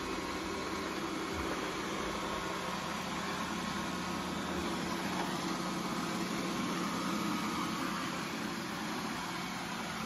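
Roborock Q9 Max robot vacuum running, its suction fan and brushes giving a steady whir with a constant low hum as it edges along a baseboard on a hard laminate floor.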